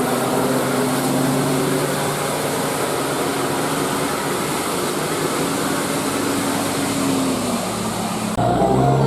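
Tour bus passing with a loud, steady rush of engine and road noise and faint long tones under it. About eight seconds in it cuts abruptly to a clear, saxophone-like telolet Basuri music horn playing a melody of stepped notes.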